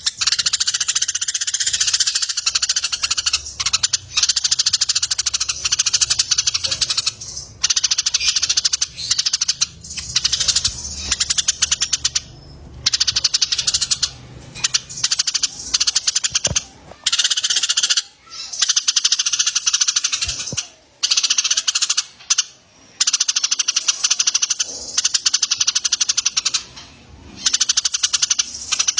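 Eurasian tree sparrows in fighting mode and a collared kingfisher calling, as played for songbird training: dense, rapid, high-pitched chatter that runs almost without a break, pausing briefly a few times.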